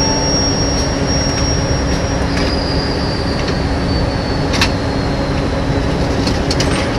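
Loud, steady aircraft ground-equipment noise on the apron: a constant hum under a high whine that drops a little in pitch about two and a half seconds in. A few sharp knocks, the loudest about four and a half seconds in, come as the AKE baggage container is pushed onto the loader's roller deck.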